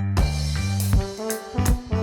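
Background music in an upbeat swing or jazz style, with held horn-like notes over a bass line and regular drum hits.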